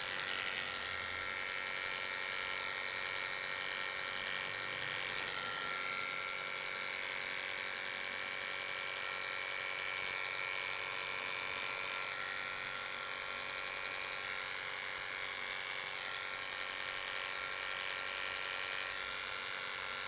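Electric dog grooming clippers fitted with a #40 blade running with a steady buzz, clipping the hair on the inside of a dog's ear.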